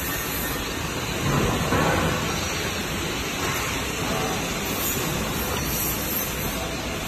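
Steady noise of workshop machinery running, with a brief louder swell about a second and a half in.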